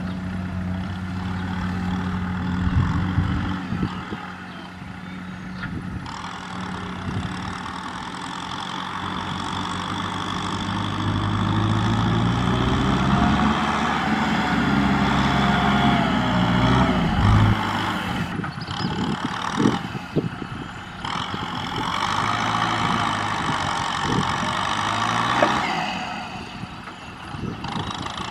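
Diesel tractor engine working under load as it drives through deep mud, its pitch rising and falling with the throttle and swelling loudest in the middle, with some scattered knocks later.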